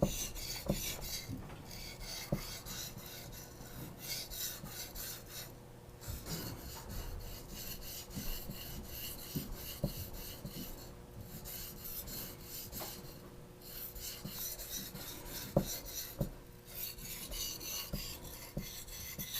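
Steel knife blade, a hand-forged petty, being stroked back and forth over a wet whetstone: a rhythmic gritty scraping that stops briefly a few times.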